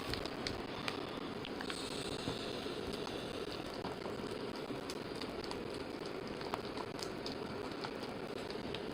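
Sealed box of trading cards and its packs being handled and opened: scattered small crackles and clicks of plastic wrap and cardboard, with a brief tearing hiss about two seconds in, over a steady background hum.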